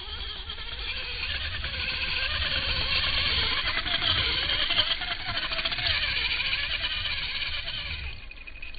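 Electric RC buggy on a 3S LiPo battery driven hard across sand: a high motor and drivetrain whine, rising and falling in pitch with the throttle, over the hiss of tyres throwing sand. It swells as the buggy passes close, about three to five seconds in, and fades as it drives off near the end.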